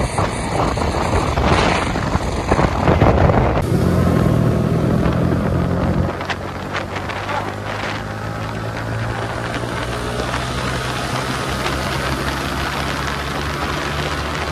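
Motorcycle riding at cruising speed. For the first few seconds wind buffeting on the microphone covers most of the sound. After an abrupt cut about four seconds in, the engine's steady running hum comes through under the road and wind noise.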